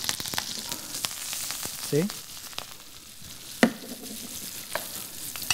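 A halibut fillet frying in foaming butter with fresh thyme in a stainless steel pan, sizzling and crackling steadily. A sharp click comes about three and a half seconds in.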